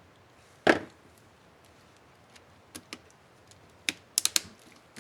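Acer Aspire One 725 laptop keyboard keys clicking as a keycap is fitted and pressed: one loud click about a second in, a pair of lighter clicks midway, then a quick run of four clicks near the end.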